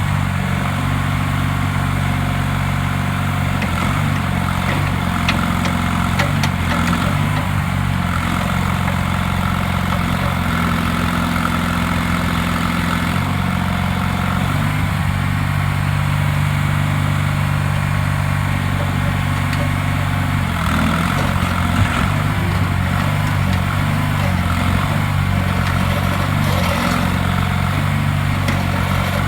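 Terramite compact loader-backhoe's engine running steadily, its pitch dipping and recovering briefly a few times.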